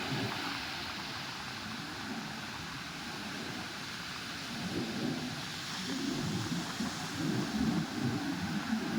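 Strong wind buffeting the microphone in irregular gusts, over a steady rush of sea and surf. The gusts grow stronger in the second half.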